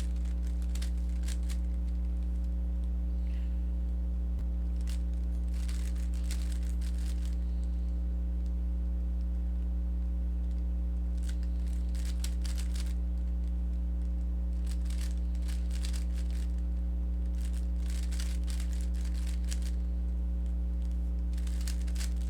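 Rubik's cube being turned by hand: several quick runs of rattling plastic clicks from the layer turns, separated by short pauses. A steady low electrical hum runs underneath and is the loudest thing throughout.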